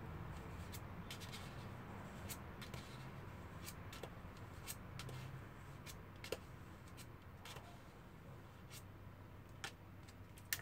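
Small squeegee scraping solder paste across a metal PCB stencil: a faint, soft rubbing with scattered light clicks, over a low steady hum. A sharper click comes at the very end.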